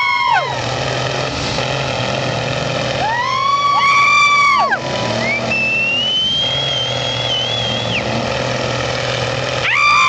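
M35A2 deuce-and-a-half military truck's engine pulling through deep mud, a steady low drone. High whining tones rise, hold and drop away over it, about three seconds in, again soon after, and near the end.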